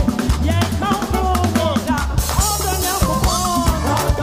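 Live praise band playing: keyboard over drum kit and deep bass notes, with gliding melody lines and a cymbal crash about halfway through.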